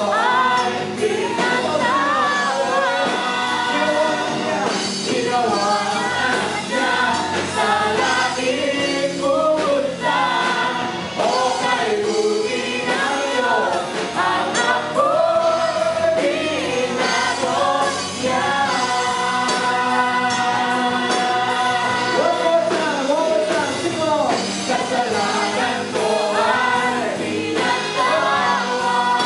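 Worship band and congregation singing a Tagalog praise song together, many voices over live band accompaniment.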